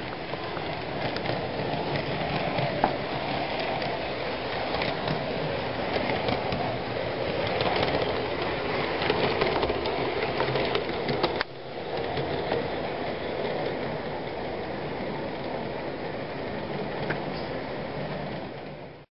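Hornby OO-scale Class 466 Networker model electric train running along the layout track: a steady mechanical running noise with scattered clicks from the wheels on the rails. The sound drops suddenly about eleven seconds in, then carries on a little quieter.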